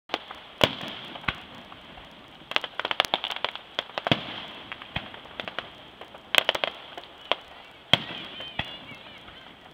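Aerial fireworks shells bursting: sharp bangs at uneven intervals, with quick runs of crackling pops in between.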